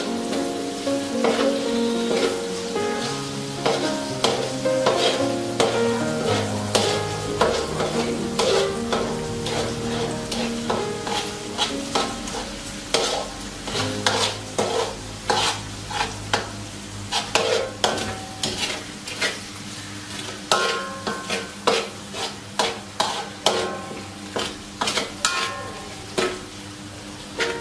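Spatula scraping and clacking against a wok while stirring sizzling fried prahok with egg and pea eggplants. The strokes come more distinctly and evenly in the second half, about two a second.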